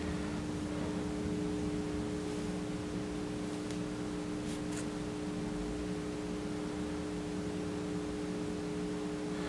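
Steady room background of hiss with a low electrical hum, with a faint click at the start and a couple of faint ticks about halfway through.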